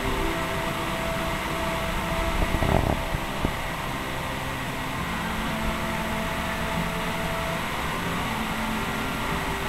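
A steady fan-like hum throughout, with a brief rustling noise and a single click about three seconds in.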